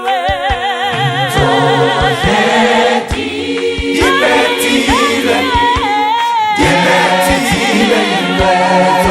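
Choir singing a gospel song in harmony, with a vibrato lead line over held chords and regular sharp beats keeping time.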